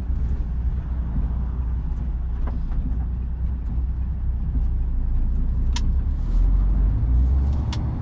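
Lorry cab interior while driving: steady low engine and road rumble, swelling for about a second some six seconds in. Two short sharp clicks are heard near the end.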